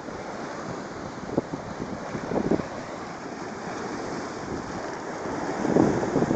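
Strong sea waves washing and breaking on the shore, with wind buffeting the microphone in short thumps; it grows louder near the end.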